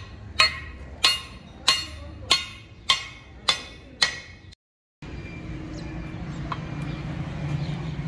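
Hammer striking rivets on a truck drum-brake shoe's new lining: seven sharp, ringing metal blows, about one every 0.6 seconds. After a cut about five seconds in, a steady low hum takes over.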